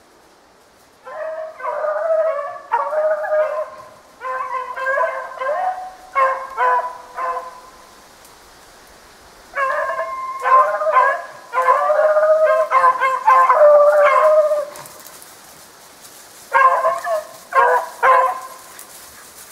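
Beagles baying as they run the track of a snowshoe hare. The cries come in four bouts of quick calls with short pauses between.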